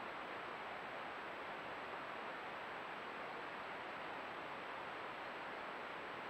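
Steady hiss from a trail camera's microphone and electronics, with a faint high-pitched whine underneath and nothing else standing out.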